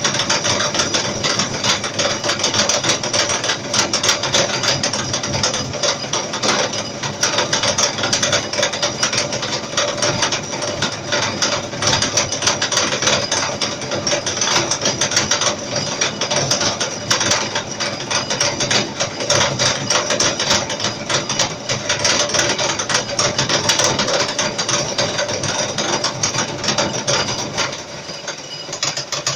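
Milling machine cutting a round metal workpiece held on a rotary table: a dense, rapid clatter of the cutter chipping metal over a steady machine hum, dying down near the end.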